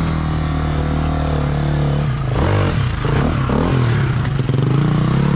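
Off-road enduro motorcycle engine running at a steady throttle, then revved up and down in quick bursts for about a second and a half near the middle as the bike is worked over a log, then held steady again.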